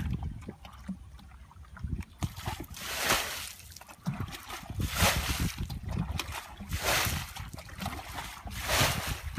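Water splashing as a plastic bucket is scooped through a shallow muddy pool and its load tossed out, about once every two seconds: the pool being bailed out by hand to get at the fish.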